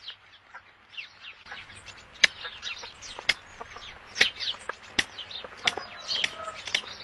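Birds chirping in quick, short, falling calls, many overlapping, with several sharp clicks in between; the loudest click comes about two seconds in.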